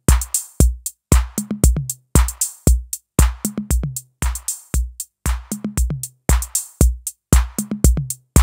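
606 drum machine beat playing through a DIY VCA-based compressor: deep kick drum thumps, short low pitched tom notes and bright noisy snare and hi-hat hits in a one-bar pattern that repeats about once a second. The beat is being compressed as the threshold, attack and release are adjusted.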